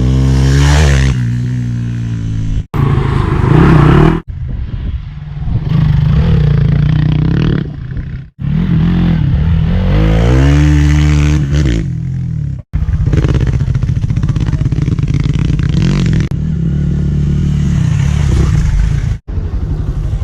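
Hero XPulse 200 single-cylinder motorcycle engine, fitted with a custom aftermarket exhaust, idling and being revved repeatedly, its pitch rising and falling. The sound comes in several short edited clips that cut off abruptly, at about 3, 4, 8, 13 and 19 seconds in.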